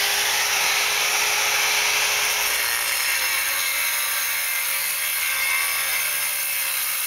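Power cutting machine cutting sandstone, a loud, steady high-pitched grinding hiss of blade on stone. A faint hum under it sags a little in pitch about three seconds in.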